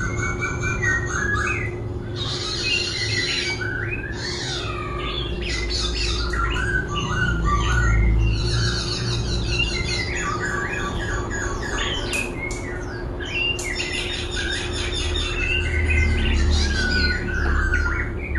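Laughingthrush (khướu) singing continuously, switching between many varied phrases, rapid trills and pitch glides with barely a pause. A steady low hum runs beneath the song.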